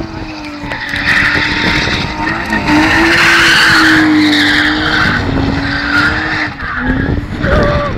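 BMW E36 320i's 2.0-litre straight-six held at high revs while the car drifts, with the rear tyres squealing and screeching as they spin on the tarmac. The tyre noise is loudest in the middle, and the engine note drops near the end.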